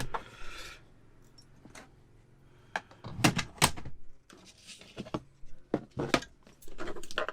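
Rummaging through a van's glove box for a bolt: irregular clicks, knocks and clinks of small hard loose parts being moved about, with a short rustle at the start and the loudest knocks about three seconds in.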